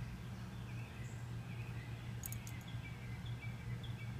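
Faint, short high chirps repeating about three times a second over a steady low hum, with a few faint clicks about two seconds in.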